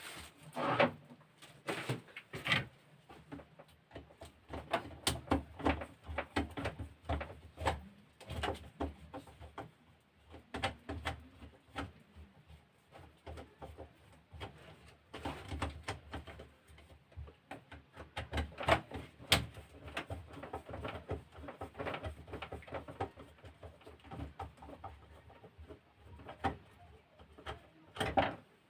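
Irregular clicks, knocks and light scraping of small parts being handled as a battery sprayer's pump motor is taken apart to get at its worn bearing.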